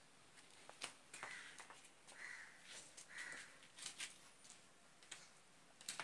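Near silence: room tone with a few faint clicks and three short, faint calls about a second apart.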